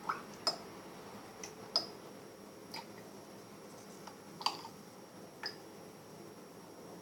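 Spoon clicking against a plate while stirring a flour-and-water slime mixture, with about eight sharp, irregularly spaced clicks.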